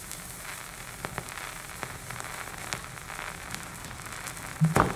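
Vinyl record surface noise picked up by a turntable stylus: a steady crackling hiss with scattered clicks and pops. A louder thump comes near the end.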